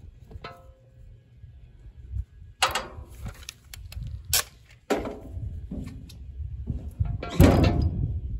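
Vermeer BC1500 chipper's cutter drum clunking against its locking pin as it is rocked through its little play: about four metal clunks, the heaviest near the end.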